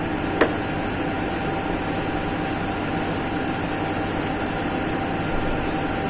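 Steady mechanical background hum with a faint constant whine, and a single short click about half a second in.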